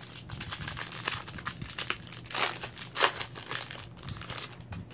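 Plastic wrapper of a football trading-card pack being torn open and crinkled by hand, the loudest crackle about three seconds in.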